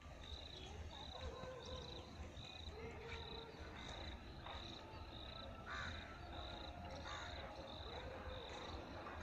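Quiet trackside ambience at dusk: a short, high-pitched note repeats about every two-thirds of a second throughout, with scattered bird calls and a low rumble of wind underneath. No train is heard yet.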